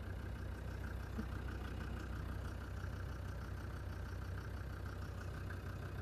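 Land Rover Defender TD5's five-cylinder turbodiesel idling steadily, with a faint tapping in the background that the owner puts down most likely to faulty hydraulic lifters.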